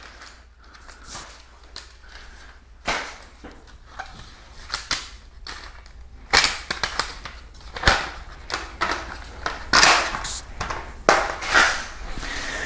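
A plastic scooter front basket being handled and turned over: irregular sharp clicks and knocks with rustling in between, busier and louder in the second half.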